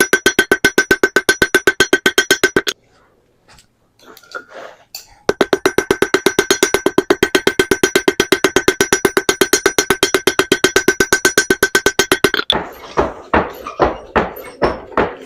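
Blacksmith's hammer striking hot 3/16 inch steel round stock on an anvil to flatten and draw it out: fast, even blows, about six a second, each with a bright anvil ring. The hammering stops for a couple of seconds about three seconds in, then runs fast again. Near the end come slower, duller blows, about two a second.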